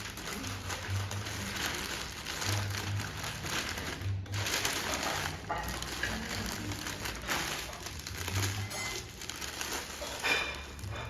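Paper crinkling and crumpling, irregular and continuous, typical of tableware being wrapped in paper, over background music with a steady bass beat.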